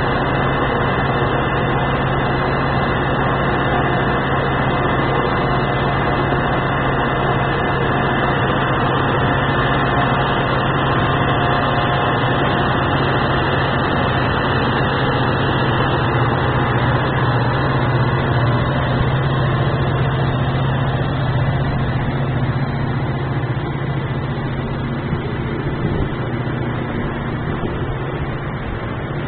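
Metra diesel commuter train pulling out of the station: a steady low engine hum over the rumble of its bilevel cars rolling, easing off over the last several seconds.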